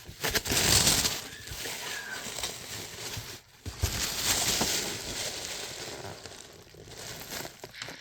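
Packaging rustling and crinkling as an item is handled and unwrapped, in uneven swells.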